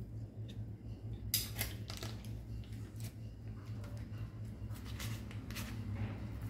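A plastic bag of butter crinkling and rustling as it is handled, with light clicks, starting about a second in, over a steady low hum.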